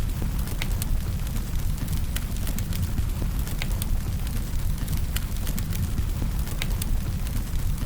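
Wood fire burning, with irregular sharp crackles and pops over a steady low rumble.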